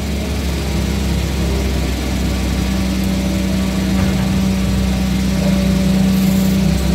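Sumitomo excavator's diesel engine running steadily, with a constant hum.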